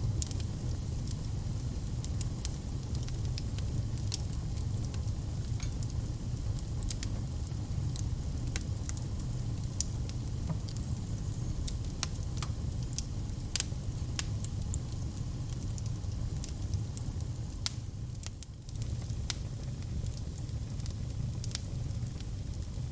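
Wood fire crackling: a steady low rumble of burning with frequent irregular sharp pops and snaps.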